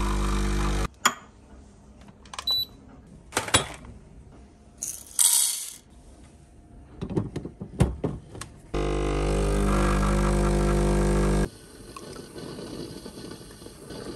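Home espresso machine at work: a short steady motor hum, then several seconds of clicks and metal clatter as the portafilter is handled and locked in, then the pump humming steadily for nearly three seconds as a shot is pulled, stopping suddenly.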